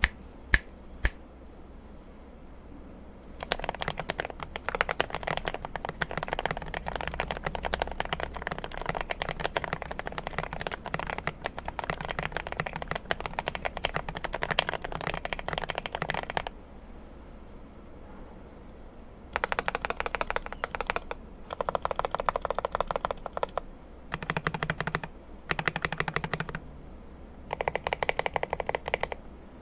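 GMMK Pro mechanical keyboard with lubed Gateron CJ linear switches, tape-modded and foam-dampened, being typed on. After a few single key presses at the start, a long run of fast continuous typing gives way, after a pause, to several shorter bursts of keystrokes.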